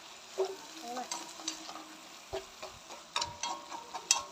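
Squash shoots and garlic stir-frying in a stainless steel wok: a steady sizzle under repeated knocks and scrapes of wooden chopsticks against the pan. The pan rings briefly after the sharpest knocks, about three and four seconds in.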